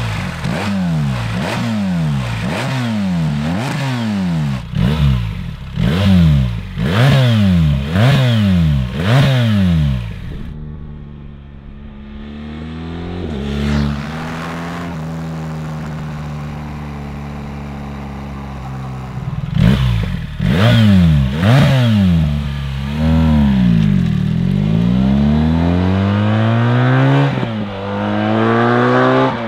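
BMW R1300GS boxer twin through a Remus 8 2.0 exhaust, accelerating hard through the gears with repeated rising revs, each dropping back at a shift. It then eases to a steady lower note, revs up again, slows and pulls away once more near the end.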